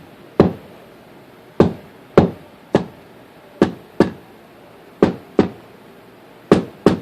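Vacuum cleaner filter being tapped against a hard surface to knock the dust out: about ten sharp knocks at an uneven pace, several in quick pairs.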